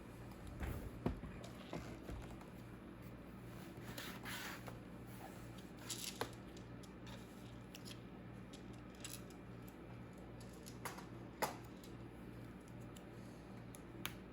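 Quiet handling noises: scattered light clicks and taps, with a couple of brief rustles about four and six seconds in, over a faint steady low hum.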